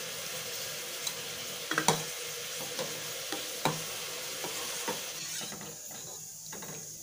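A steel ladle stirring milky sago payasam in a steel pot, with a few short knocks and scrapes of metal on metal at uneven intervals over a steady hiss. The stirring dissolves freshly added sugar into the hot milk.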